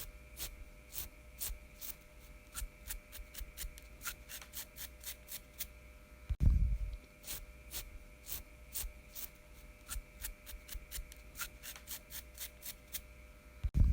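Fingernails scratching through a man's beard hair, a run of short raspy strokes at about two or three a second. A single low thump about six and a half seconds in is the loudest sound.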